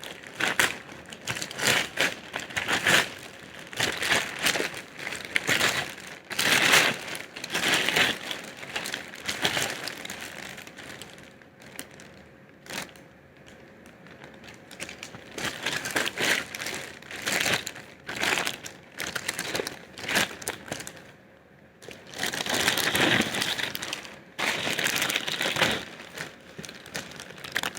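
Packaging being handled as a keyboard box is unboxed: irregular crinkling and rustling in fits and starts, easing off for a few seconds in the middle and picking up again later.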